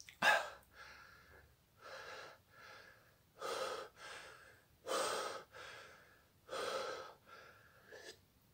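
A man breathing hard in and out through his open mouth, about a breath a second, after a short voiced exhale at the start. It is panting against the burn of a Carolina Reaper chocolate pepper in his mouth and throat.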